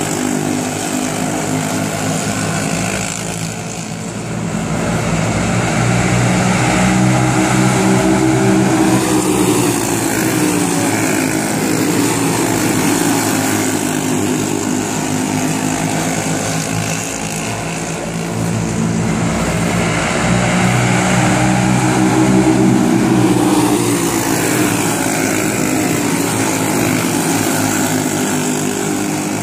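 A field of dirt-oval racing karts with single-cylinder Briggs & Stratton Animal four-stroke engines running hard at racing revs. The sound swells twice as the pack comes by, the engine notes rising and then falling as the karts pass, and fades between.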